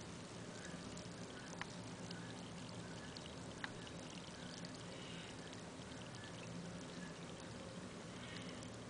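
Fermenting grain mash for chicken feed fizzing softly as its foam bubbles, with two sharper single pops, over a faint low hum.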